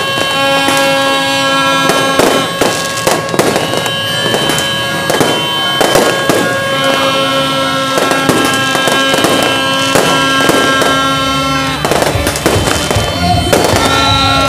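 Aerial fireworks bursting and crackling, a rapid string of bangs with a dense cluster near the end. Music with long held notes plays underneath throughout.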